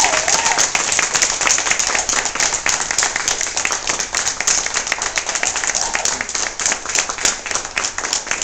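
A small roomful of people applauding, many hands clapping together, thinning out and getting quieter near the end.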